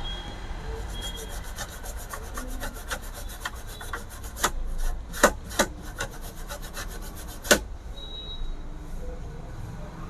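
Quick repeated scrubbing strokes on a circuit board, as the area around the removed sound IC's pads is cleaned. A few louder scrapes come in the second half, and the scrubbing stops about seven and a half seconds in.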